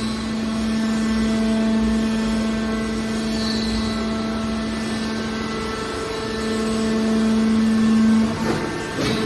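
Hydraulic power unit of a scrap metal baler shear running with a steady hum, swelling louder for a couple of seconds near the end and then dropping, followed by a few knocks.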